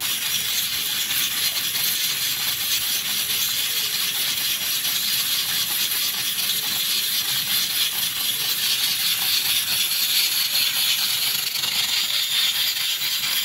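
Electric fan running: a steady, even hiss of moving air with no breaks.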